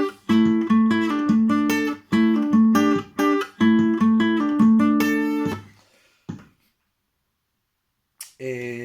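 Guitar playing a fast repeating riff of single plucked notes, which stops about five and a half seconds in. A short click follows, then a man's voice starts near the end.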